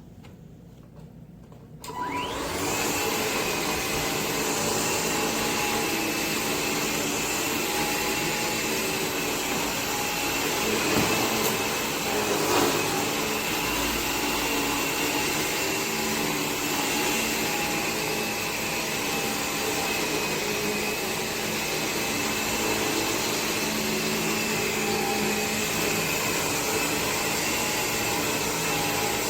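Bissell Air Ram cordless stick vacuum switched on about two seconds in. Its motor spins up with a rising whine, then runs steadily with a high whine and rushing air, with two brief knocks about halfway through.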